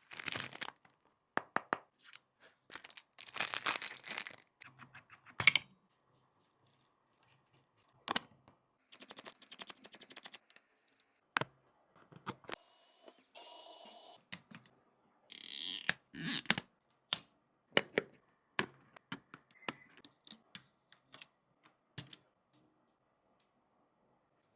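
Irregular clicks, taps and scrapes of small repair tools on an iPhone 15 Pro Max's cracked back glass, with a short steady noise about thirteen seconds in.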